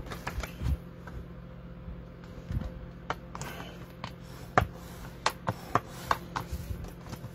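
Hands handling and folding cardstock on a craft mat: scattered light taps, clicks and paper rustles, a few sharper taps about halfway through, over a faint steady hum.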